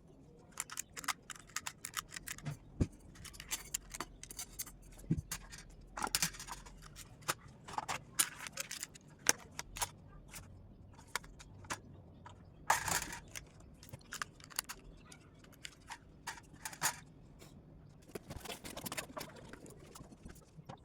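Close-up irregular clicks, taps and short scrapes of hands handling a small plastic digital timer and its packaging.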